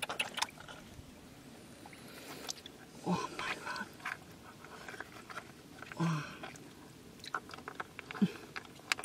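Freshwater mussel shells clicking and clacking against each other as they are handled in shallow water, with light water splashing, and a few short exclamations from a man.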